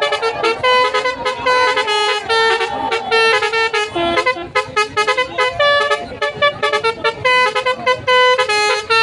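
A tour bus's Basuri telolet musical horn playing a quick melody, with short pitched horn notes following one another without a break.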